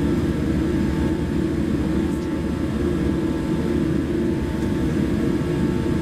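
Jet airliner's engines and airflow heard inside the passenger cabin while taxiing: a steady low rumble with a faint steady whine above it.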